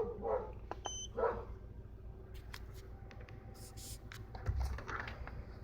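Clicks and taps of an OBD-II scan tool being handled and plugged in, with a short electronic beep about a second in, over the steady low hum of the B18B1 engine idling.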